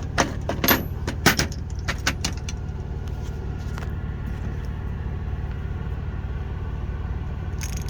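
Steel hand tools from a socket set (ratchets and sockets) clinking and knocking against each other and the plastic case as they are picked up, mostly in the first couple of seconds with one more clink near the end. A steady low hum runs underneath.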